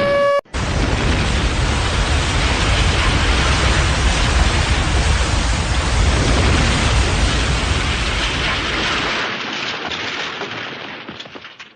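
Storm sound effect of a tornado: a loud, dense roar of wind-and-rain noise with a deep rumble, cutting in abruptly about half a second in. The rumble drops away near the end and the roar fades out.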